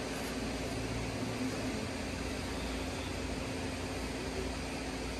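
Steady hum of an electric fan running, an even rushing noise with a low drone under it.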